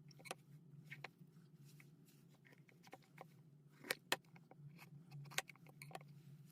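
Faint scattered clicks and snips of a broccoli head being cut apart into florets, with two sharper clicks about four seconds in, over a low steady hum.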